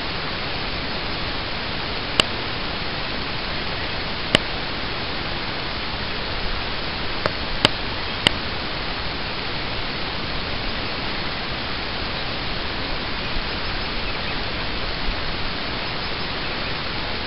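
Steady hiss of camera recording noise, broken by a few sharp clicks in the first half.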